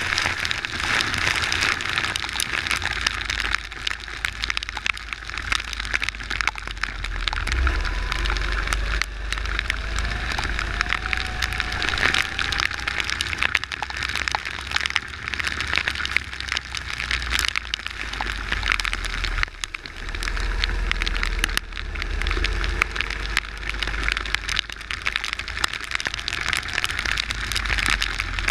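Water spray and wind crackling and buffeting on an onboard camera riding a go-kart at speed on a wet track. The kart's engine rises and falls faintly beneath the noise.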